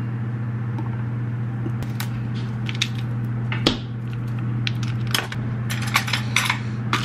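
Ice cubes being knocked out of a plastic ice cube tray and clinking into a tall cup: scattered sharp clicks and knocks, then a quick run of them about five to six seconds in, over a steady low hum.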